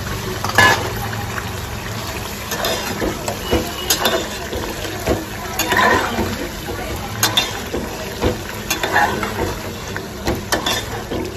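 Raw prawns tipped into a metal pot of tomato masala and stirred, the spatula and spoon knocking and scraping against the pot about every second and a half over a steady hiss.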